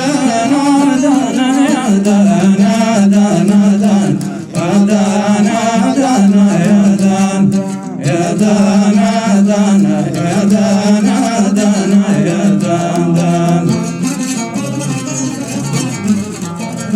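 Men singing a Hadrami dan melody over a plucked string instrument accompaniment.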